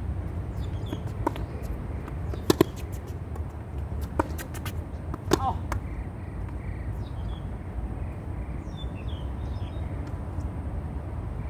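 Tennis ball struck by racquets and bouncing on a hard court during a rally: sharp hits, the loudest a close pair about two and a half seconds in, then single hits about four and five and a half seconds in, over a steady low rumble.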